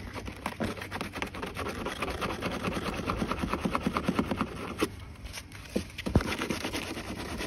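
150-grit sandpaper rubbed by hand in quick back-and-forth strokes on the plastic of a basketball hoop's water-filled base, roughening the surface around a crack so the adhesive will grip. The strokes pause briefly about five seconds in, with one sharp knock about six seconds in.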